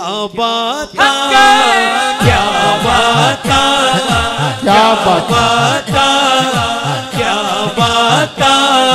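A man's voice singing a Punjabi devotional naat through a microphone and PA, in long, drawn-out melodic phrases with no clear words. From about two seconds in, a low rhythmic pulse beats under it about twice a second.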